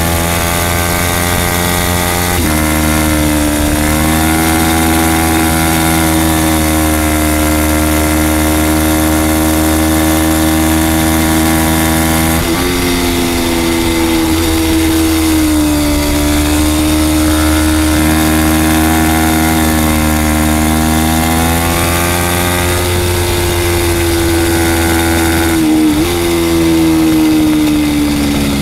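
Racing sportbike engine running at high revs at race pace. Its pitch rises and falls through the corners, with sudden steps about 2 and 12 seconds in. A steady rush of wind sits under the engine, heard from the onboard camera behind the windscreen.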